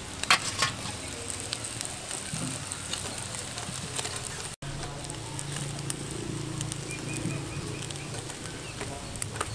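Whole fish sizzling on a wire grill rack over glowing charcoal, with metal tongs clicking sharply against the rack as the fish are turned. About halfway through, a steady low hum comes in, with a short run of faint bird chirps.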